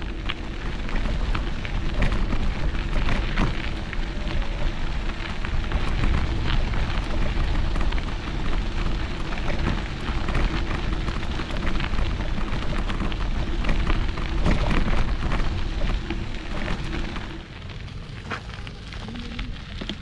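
Bicycle tyres rolling over a gravel path, a constant crunching crackle of grit, with wind rumbling on the microphone. A steady low hum underneath stops a few seconds before the end, and the noise drops.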